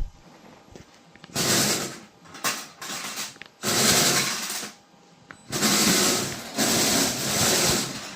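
Small electric motors and plastic gears of a remote-controlled Lego Technic digger whirring in about five short runs, each about a second long, starting and stopping abruptly as the model is driven.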